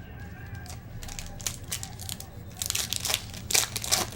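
A trading-card pack wrapper being torn open and crinkled, in a run of crackly tears that grows loudest near the end.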